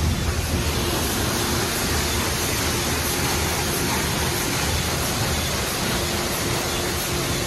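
Futura Millennium touchless car wash spraying high-pressure water jets against a car's body: a steady hiss of spray, with a faint steady hum of the wash machinery underneath.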